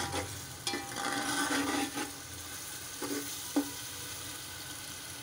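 Tomatoes, onion and spices frying in oil in a metal pot, with a steady sizzle as a spoon stirs them and scrapes and knocks against the pot a few times. The tomatoes are being cooked down over low heat into a paste.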